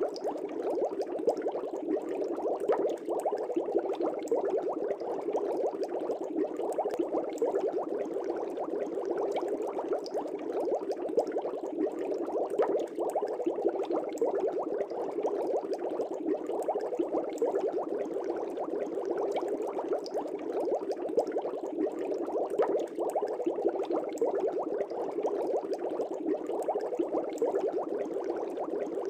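Air bubbles streaming steadily up through fish-tank water, a dense continuous bubbling with many small pops.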